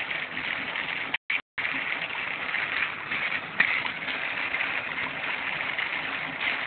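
Home-built HHO dry-cell electrolyser fizzing and bubbling steadily as it makes hydrogen-oxygen gas. The sound cuts out for a moment about a second in.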